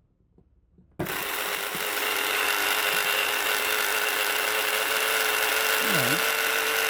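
Washing-machine drain pump, a small mains-powered electric pump motor, switched on about a second in and running steadily with a loud, rough rattling noise over a constant hum.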